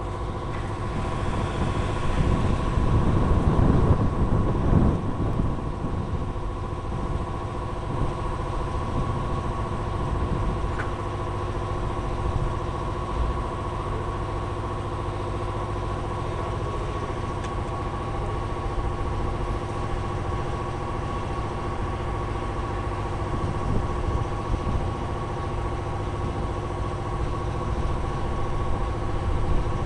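Workshop air compressor running with a steady hum over a low rumble, louder for a few seconds near the start.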